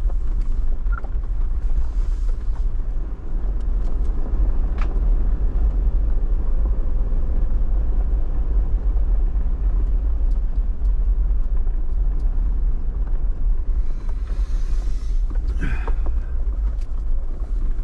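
Jeep Wrangler driving on the road, heard from inside the cabin: a steady, loud low rumble of engine and road noise, with a few faint clicks.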